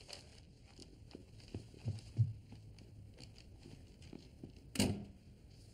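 Quiet room with scattered soft knocks and low thuds, then one sharper knock about five seconds in.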